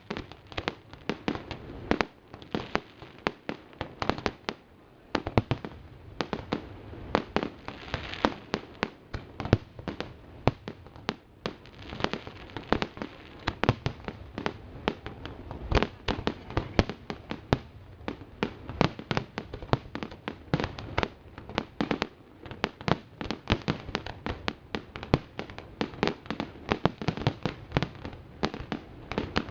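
Fireworks display going off in a rapid, continuous volley of bangs and crackling reports, with several louder booms standing out.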